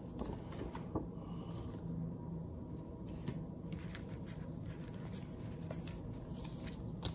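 Faint rustling and scattered light taps of paper photo prints and card being handled, over a low steady hum.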